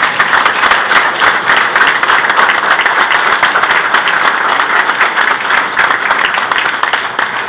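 Audience applauding: a roomful of people clapping in a dense, steady patter that dies away right at the end.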